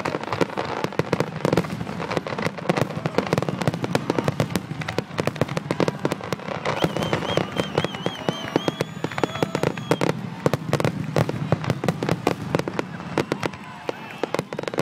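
Fireworks finale barrage: aerial shells bursting in rapid, overlapping succession, a dense, continuous stream of bangs and crackles. A warbling high whistle rises over the bursts about seven seconds in and lasts about three seconds.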